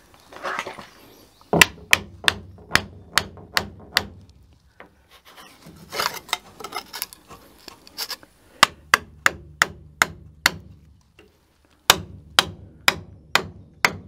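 Hammer blows on wood in three quick runs, about two strikes a second: a thin wedge being driven in behind a framing member to raise it about a sixteenth of an inch.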